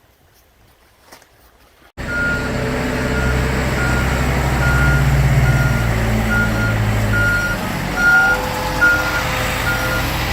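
A heavy vehicle's reversing alarm beeping steadily, about three beeps every two seconds, over its running engine. It starts abruptly about two seconds in.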